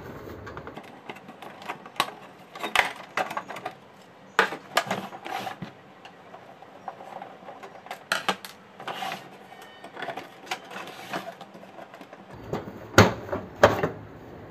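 Plastic clicks, snaps and knocks as the housing covers of an HP LaserJet M1005 MFP printer are unclipped and pulled off by hand, irregular throughout, with a louder run of knocks near the end.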